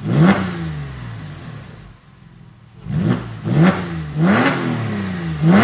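Porsche 996 Carrera flat-six revved in sharp throttle blips through an EVOX ValveTronic stainless exhaust. The pitch jumps up and slides back down each time: one rev near the start that dies away slowly, then, after a short lull, four quicker blips in a row.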